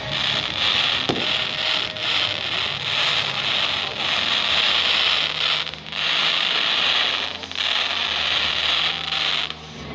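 Firework fountains hissing steadily as they spray jets of sparks, with one sharp crack about a second in. The hiss dips briefly twice, near the middle and near the end.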